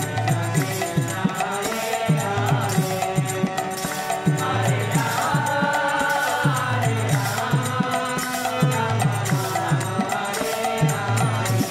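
Devotional Hindu music: chanted singing with held instrumental notes over a steady drum beat.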